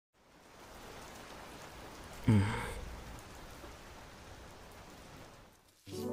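Steady rain sound effect fading in, with a short sigh, a breathy exhale with a falling voice, about two seconds in. Near the end the rain cuts out and music with steady held notes begins.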